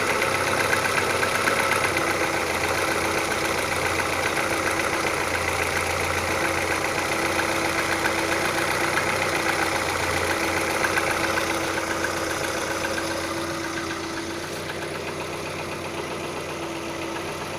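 Audi 80 B3 1.8-litre four-cylinder petrol engine idling with a regular knock whose cause is unknown; the sound drops a little in level about two-thirds of the way through.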